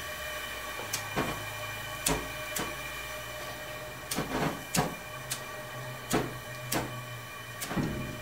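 Metal clinks and knocks as a short steel pipe nipple is threaded by hand onto the forge burner's pipe fittings held in a vise, about a dozen irregular strikes, over a steady hum.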